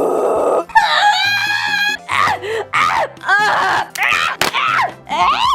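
A woman's voice making a rapid string of strange non-word noises: a raspy screech, then a held high squeal, then short whoops and groans that slide up and down in pitch, over background music.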